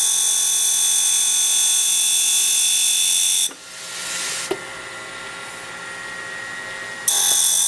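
Steady high hiss and whistle of compressed air escaping from the sharpening fixture's air bearing. It cuts off a little past the middle and comes back near the end, over the steady hum of the grinding wheel's motor. A single click sounds during the pause.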